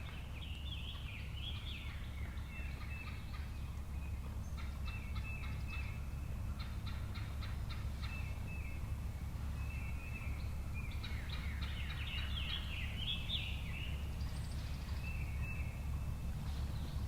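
Wild turkeys calling: several bursts of rapid, rattling calls, a gobbling tom among hens, with a steady low rumble underneath.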